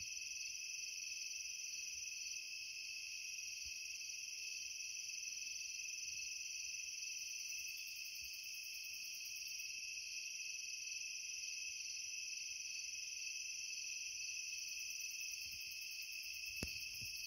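A night chorus of crickets and other insects trilling steadily, with a higher, rapid ticking that comes and goes twice. There is a single short click near the end.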